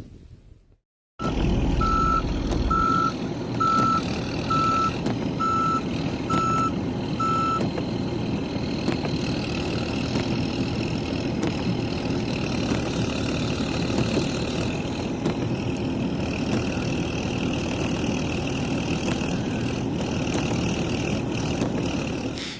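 A vehicle's reversing alarm beeps eight times, about once a second, over steady vehicle noise. The beeps stop about a third of the way in and the steady noise carries on.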